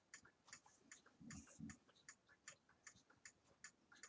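Faint, even ticking of a wall clock, about two to three ticks a second. Two short, low, muffled sounds come just over a second in.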